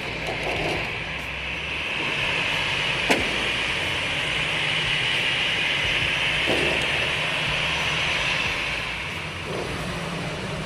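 Jet engines of a Cebu Pacific airliner on the airport runway: a steady rushing whine that swells and then eases off near the end. A single sharp click about three seconds in.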